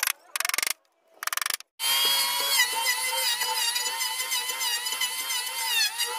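Electric power drill: two short bursts of rapid ratcheting clicks, then the motor runs with a steady high whine for about four seconds, its pitch dipping briefly twice as it takes load.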